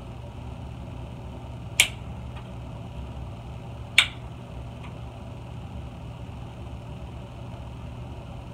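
Nail clippers snipping through long fingernails: two sharp clicks about two seconds apart, with a few fainter clicks between them and just after. A steady low hum runs underneath.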